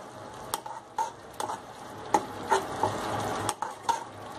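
Steel spoon stirring a thick tomato-onion masala frying in oil in a kadai. It clicks against the pan about twice a second over a soft sizzle; the masala is fried to the point of releasing its oil.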